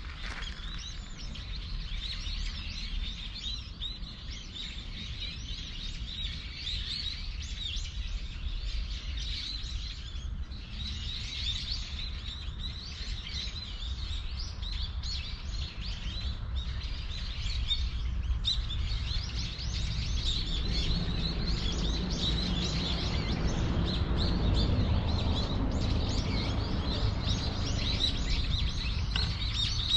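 Small birds chirping and calling busily and continuously, over a low outdoor rumble that grows louder about two-thirds of the way through.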